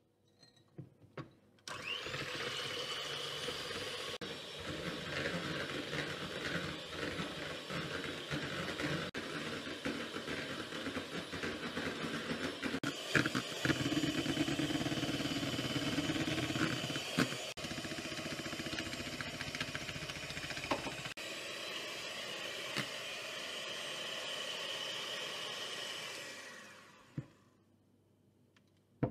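Elif electric hand mixer whipping egg whites and sugar into a stiff meringue in a plastic bowl. The motor starts about two seconds in and runs steadily with a few sharp knocks, then winds down near the end.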